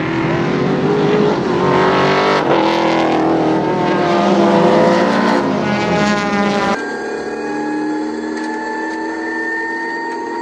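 A pack of race cars accelerating through a corner, several engine notes overlapping and rising and falling in pitch. About two-thirds of the way through, the sound switches suddenly to the in-cabin sound of a Rover SD1's 3.5-litre V8 under hard acceleration, a single engine note climbing slowly in pitch.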